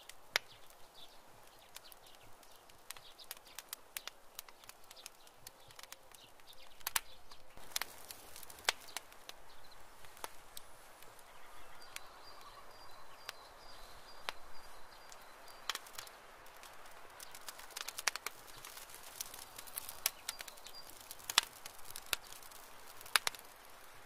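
A domestic rabbit digging in dry, crumbly soil: irregular scratches and sharp clicks of its claws raking the earth and clods dropping, some strokes louder than others.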